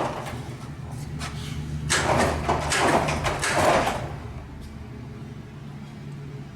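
A jackshaft garage door opener running and turning the door shaft, with a steady motor hum. Near the middle, the sectional door's travel adds a rattling, sliding noise for about two seconds.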